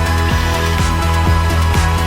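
Electronic background music with a steady, driving beat and a sustained bass.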